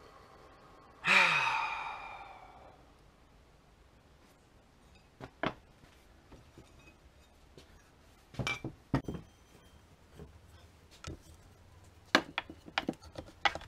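A man's long, voiced sigh, falling in pitch, about a second in, followed by scattered knocks and clinks of metal parts, an axe head among them, being picked up and set down on a workbench.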